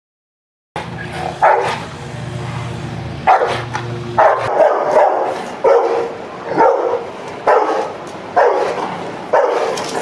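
Leashed, human-aggressive dog barking repeatedly at a person, about one bark a second, starting about a second in. A low steady hum runs under the first few barks.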